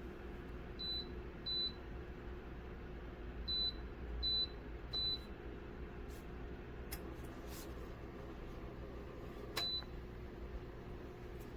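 Electric fan heater running with a steady hum, while its electronic controls give six short, high beeps, spaced irregularly, as settings are changed.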